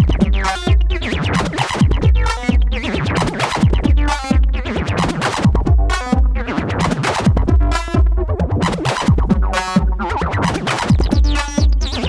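Modular synthesizer jam patched through a Joranalogue Delay 1 short-delay module: electronic music with deep kick drums repeating under metallic, flanging tones that keep shifting.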